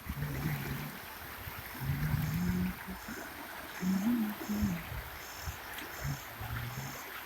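Steady hiss of falling rain. From about two seconds in, a short high chirp repeats roughly every two-thirds of a second, and short low pitched calls come and go.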